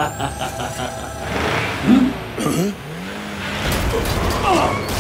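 Cartoon battle sound effects over music: a rhythmic pulsing effect that fades out in the first second, short grunting cries, then a car engine running from about three-quarters of the way in.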